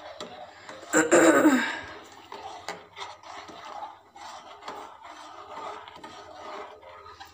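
A steel spoon scraping and rubbing against the bottom and sides of an aluminium pan in a run of uneven strokes, stirring heating milk continuously. About a second in, a short, loud vocal noise cuts across it.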